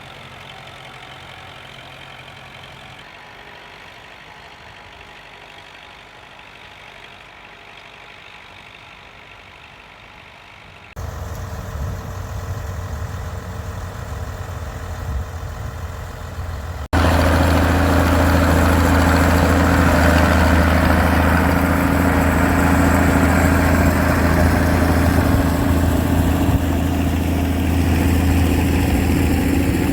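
Classic tractor engines running while ploughing, heard as several separate shots: fairly quiet at first, louder from about eleven seconds in, and loudest and close from about seventeen seconds in, with a steady low drone.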